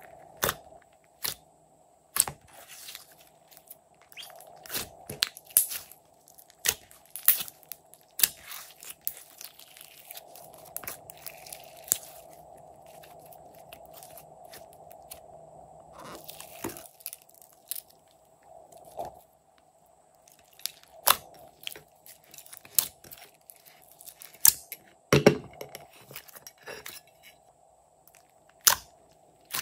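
Hands pressing, poking and squeezing glossy slime, making irregular sharp clicks and pops with soft squishing in between.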